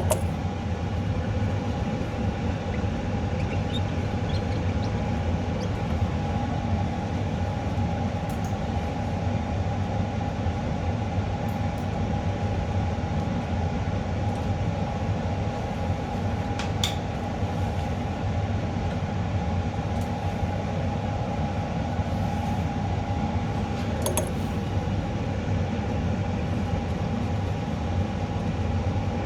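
A steady mechanical hum and rumble with a constant whine, unchanging throughout, and a few faint clicks.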